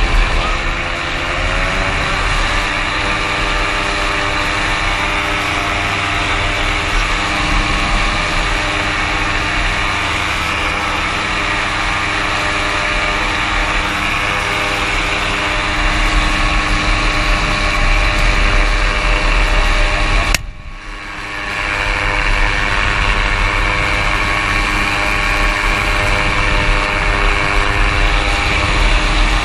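A small engine running steadily, its sound cutting out abruptly about twenty seconds in and picking up again a moment later.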